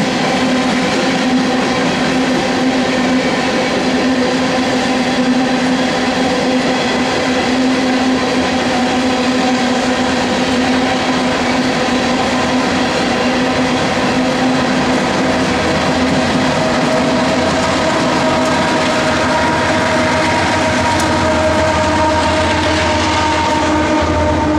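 Empty coal train's hopper cars rolling past, with a steady drone and wheel clatter. Near the end the rear distributed-power diesel locomotive goes by; its engine drone strengthens and slides down in pitch.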